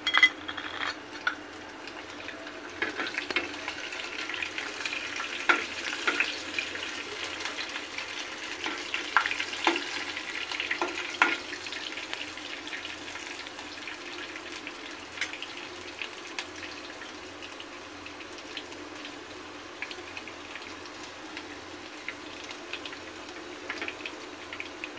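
Cumin seeds and chopped green chillies sizzling in hot oil in a non-stick kadhai, a steady hiss as the tadka cooks. A spatula stirs and scrapes the pan, giving scattered ticks and scrapes, most of them in the first half.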